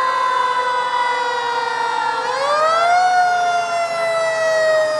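Vintage fire engine's mechanical siren wailing. Its pitch slowly falls, winds back up to a higher wail about two seconds in, then coasts slowly down again.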